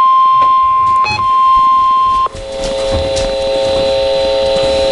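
Emergency Alert System alert tone: a steady single high-pitched tone, broken by a short blip about a second in. A little over two seconds in it cuts off abruptly and a lower, steady tone made of several pitches takes over.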